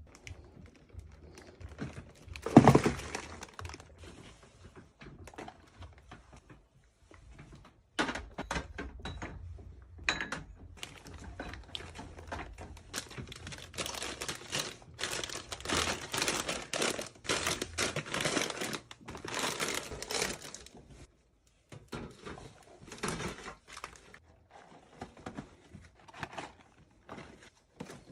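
Crinkly plastic snack packets being handled and set down, with irregular knocks and clicks of items placed into bins and shelves, and one louder thump about two and a half seconds in.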